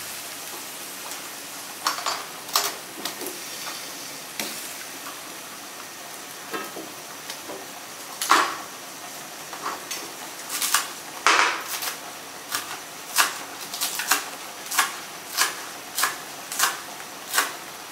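Sharp knocks and clinks of kitchen utensils against cookware over a steady hiss of the simmering curry gravy. The knocks are scattered at first, and from about ten seconds in fall into an even beat of roughly one and a half a second.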